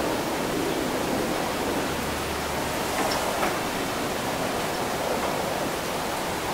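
Steady, even noise wash of a windy, wet city after rain, with a couple of faint ticks about halfway through.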